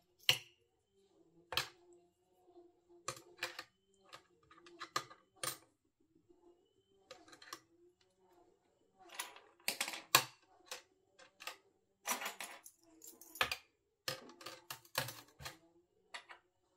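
Coins and a metal key ring being set down and shifted by hand in a small stainless-steel ultrasonic cleaner tank: irregular metallic clinks and taps, in scattered clusters.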